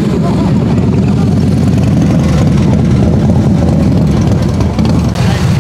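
A motorcycle engine running steadily at idle close by, a loud low-pitched sound with fast uneven firing pulses.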